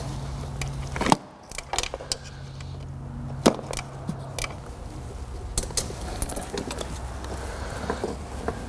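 Gloved hands working wiring and plastic trim clips in a car's engine bay: scattered light clicks and rattles, with two sharper clicks about a second in and about three and a half seconds in, over a steady low hum.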